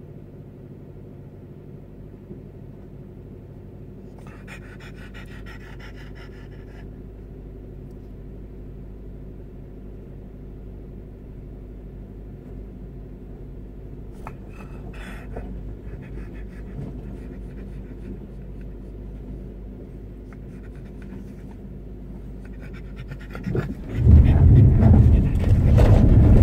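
A vehicle engine idling steadily, then revving up hard and loud near the end.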